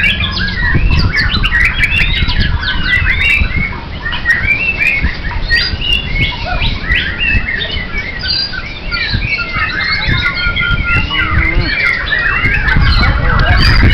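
A dense chorus of many caged songbirds singing at once: quick, overlapping chirps, trills and whistled notes, over a low rumble.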